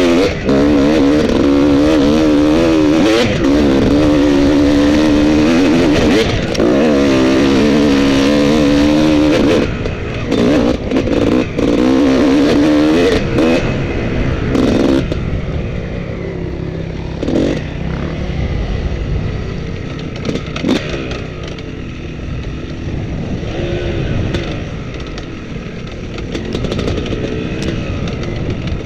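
Off-road motorcycle engine revving hard, its pitch wavering up and down as the throttle is worked for about the first ten seconds. Then the throttle is snapped on and off a few times, and for the second half the engine runs lower and quieter at part throttle, with occasional sharp knocks and clatter from the bike over rough ground.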